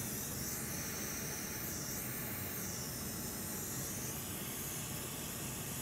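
Steady hiss of a hot air rework station blowing on a graphics card's power connector, heating the solder so the connector can be pulled off.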